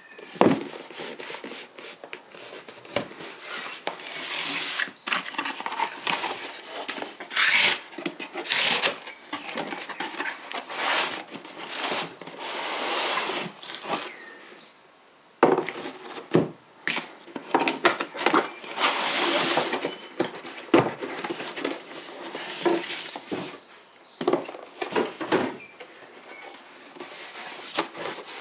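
Cardboard brake disc box being handled and opened by hand: irregular scraping, rubbing and rustling of cardboard flaps and packing, with a short pause about halfway through.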